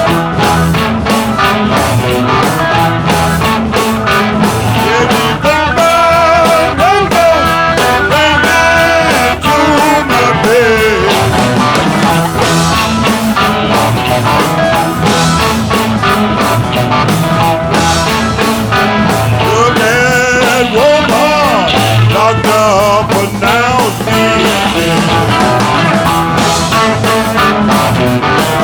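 Rock music with electric guitar and drums, and a singing voice coming in at times.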